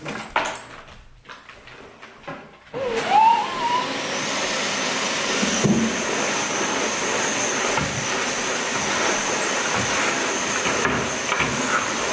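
Canister vacuum cleaner switched on about three seconds in, its motor whine rising as it spins up, then running steadily with a high whine.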